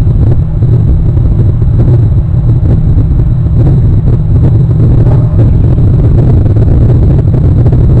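Loud, steady low rumble of wind buffeting an outdoor webcam microphone, with no bird calls standing out.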